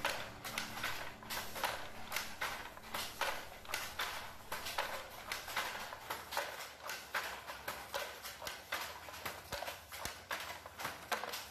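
Wooden handloom clacking in a steady weaving rhythm, about two or three sharp knocks a second. The shuttle is thrown across the warp and the beater is knocked against the cloth with each pick.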